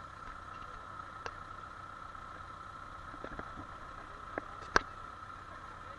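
Vehicle engine idling steadily, with a few sharp clicks and knocks, the loudest about five seconds in.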